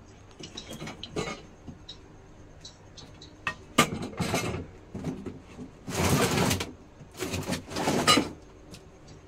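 Clutter being shifted by hand: a sharp knock about four seconds in, then longer bursts of scraping and rustling around six and eight seconds as objects on the plank platform are moved.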